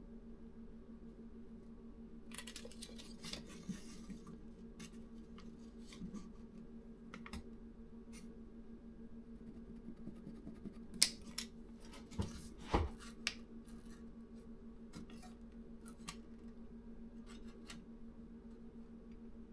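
Scattered light clicks and handling noise from wood pieces being moved and measured, with a short scraping rustle a couple of seconds in and a few sharper knocks about halfway through, over a steady low hum.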